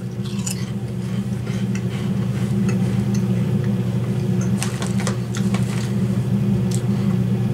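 Potato chips being bitten and chewed, with faint scattered crunches about half a second in and again around five seconds in, over a steady low hum that is the loudest sound throughout.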